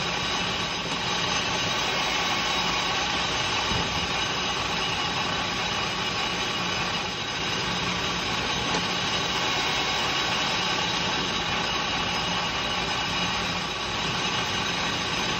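Metal lathe running steadily at about 1500 rpm, with a steady whine from the spindle drive, while a carbide insert takes a light facing cut across an aluminium piston crown.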